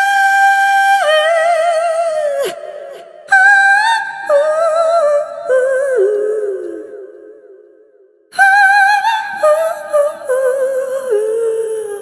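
Sampled solo female voice from the Kontakt library Clara's Vocal, singing wordless phrases. A long held high note steps down with vibrato and fades out; a second descending phrase begins about eight seconds in.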